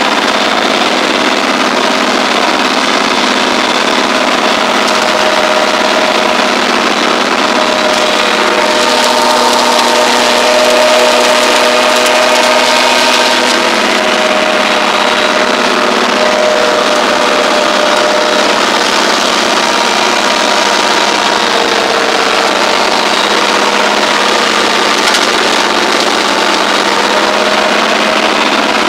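Tractor engine running steadily under load while a PTO-driven Agricolmeccanica TP/160 flail mulcher spins and chops through tall weeds.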